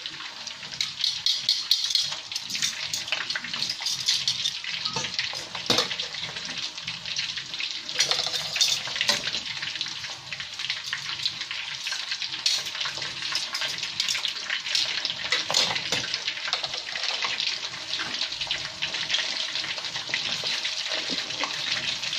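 Food sizzling in a hot frying pan: a steady hiss with many small crackles and pops, cutting off abruptly near the end.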